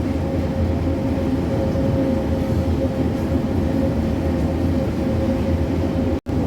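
Steady mechanical hum and rumble of bakery machinery, with a low drone and a steady higher tone over it, broken by a sudden instant of silence near the end.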